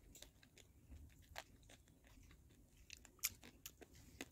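Near silence with faint, scattered small clicks and light taps from hands working a thin rolled disc of dough, with a few slightly sharper ticks spread through.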